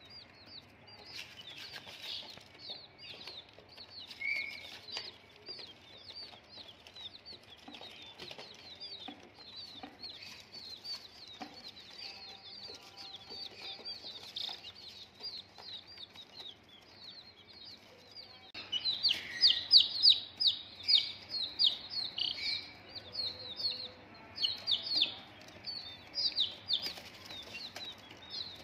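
Many baby chicks peeping in a constant stream of short, high, falling chirps, growing louder and busier about two-thirds of the way through.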